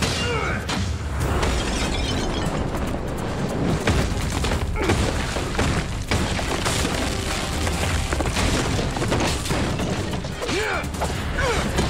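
Fight-scene sound effects of repeated booming blasts, with wood and debris smashing and shattering as a wooden building is blown apart. Background music plays under it, and short shouts or grunts come near the start and again near the end.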